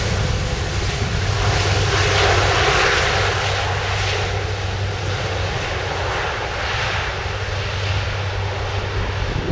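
Airbus A330-200F freighter's Rolls-Royce Trent 700 jet engines running loud as the aircraft goes by on its landing. A steady low hum sits under a rushing jet noise that swells to its loudest about two to three seconds in.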